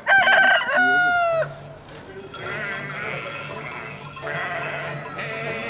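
A rooster crows once, a long cock-a-doodle-doo that is the loudest sound here. From about two seconds in, a flock of sheep bleats, with many calls overlapping.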